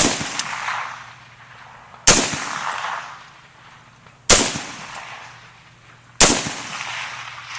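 AR-15 rifle in .223 Remington fired four times, about two seconds apart, each sharp crack trailing off over a second or so.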